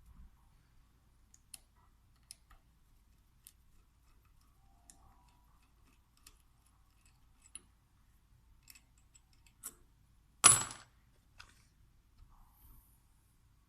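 Small metal parts and tools being handled while a VE diesel injection pump is taken apart: scattered light clicks and taps, with one sharp, ringing metal clank about ten seconds in.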